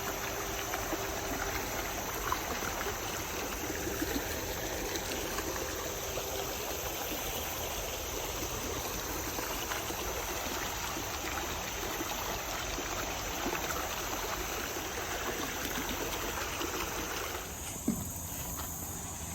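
Running water making a steady rush. Near the end it turns quieter and duller.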